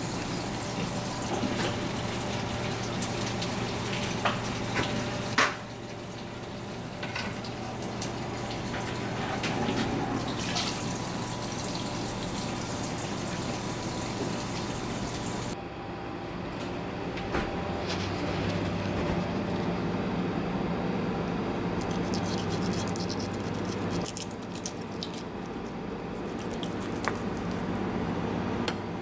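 Kitchen sound of running and dripping water over a steady low hum, with a few short clicks and knocks; the background changes abruptly a few times.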